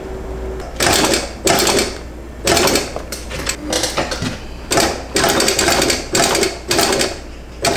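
Industrial sewing machine stitching through clear PVC vinyl, run in about ten short bursts of roughly half a second each, with brief stops in between as the seam is guided along.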